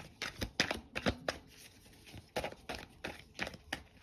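A deck of tarot cards being handled and shuffled by hand: irregular sharp clicks and slaps of card against card, with a short lull in the middle.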